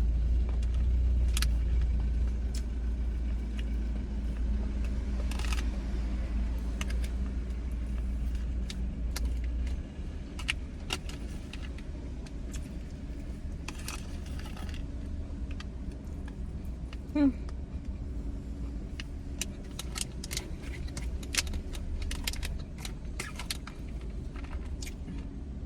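Scattered clicks, taps and rustles of eating from a takeout food container with utensils, over a steady low rumble that drops away about ten seconds in.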